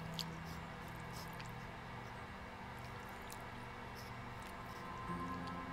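Thick stew squelching and dripping as a ladle stirs and serves it, with small scattered clicks, over a low steady drone.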